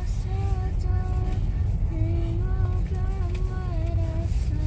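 Steady low rumble of a car driving, heard from inside the cabin, with a simple tune of held notes stepping up and down over it.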